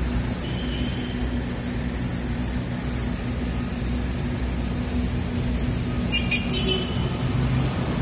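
Steady low drone of heavy construction machinery engines running, with a constant hum. Two brief faint high chirps, about half a second in and again about six seconds in.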